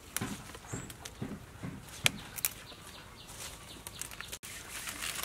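Papaya flower clusters rustling and snapping as they are picked by hand from the tree, a run of small crackles and clicks with one sharper snap about two seconds in.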